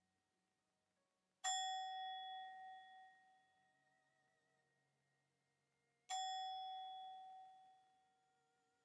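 Tibetan singing bowl struck softly twice, about four and a half seconds apart. Each strike rings out in several overtones that fade over a couple of seconds, some of them wavering as they die away.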